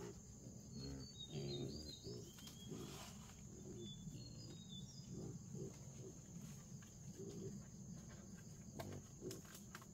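Wild boars grunting in a series of short, low calls, with a few high bird chirps and a steady insect drone behind.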